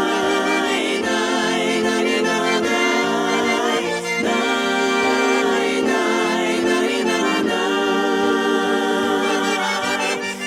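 Instrumental break in a Russian pop-chanson song: a wavering melody line over sustained chords and a steady low note, with no lead vocal.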